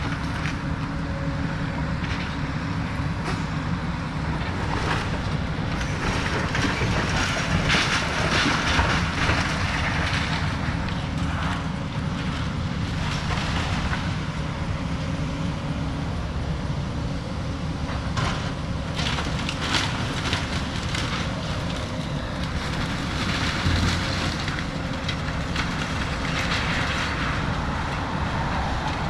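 Excavator's diesel engine running steadily under load, with intermittent crunching and clanking of demolition debris several times over.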